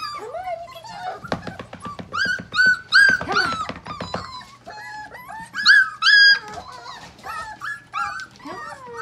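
Several Dalmatian puppies whining and yipping in short, high cries that bend up and down and overlap one another. Between about one and four seconds in there is a quick run of clicks and knocks, like paws scrabbling on the plywood board of their box.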